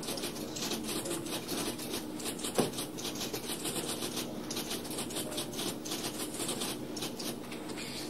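Office ambience sound effect: rapid, busy clicking of keys typing over a steady machine hum, with one sharper knock about two and a half seconds in.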